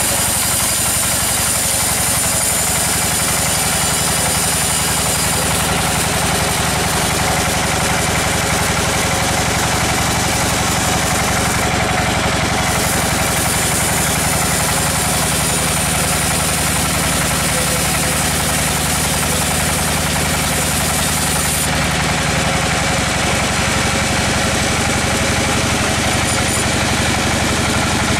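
Band sawmill running, its blade sawing lengthwise through a large, hard log: a loud, steady mechanical drone with a high hiss from the cut. The high hiss eases about three-quarters of the way through.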